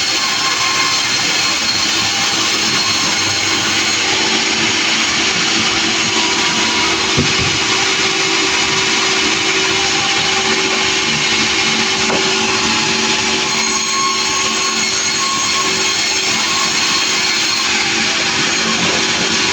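Sawmill running steadily: a continuous machine noise with a steady hum, and a brief knock about seven seconds in.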